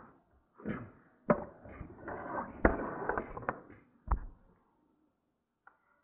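Handling noise: a handful of sharp knocks and clacks with rustling between them, the last and loudest about four seconds in, followed by a short near-silent stretch.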